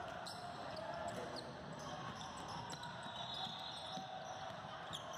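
Basketball game sounds: a ball bouncing on the court amid a steady murmur of spectators' voices, with a few short high squeaks, likely sneakers on the floor.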